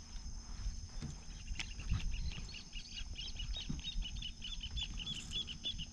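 A bird calling a long series of short, evenly repeated chirps, about four a second, starting about two seconds in, over a steady high background whine.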